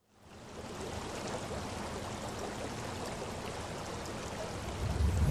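Running water, like a stream, fading in over the first half second and then steady, with a deeper swell near the end.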